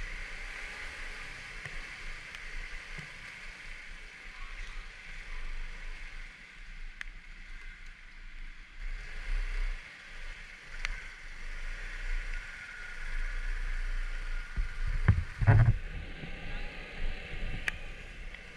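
Scooter ride on a wet road in the rain: a steady hiss of tyre spray and wind over a low rumble, with a few sharp ticks. A louder low thump comes about fifteen seconds in.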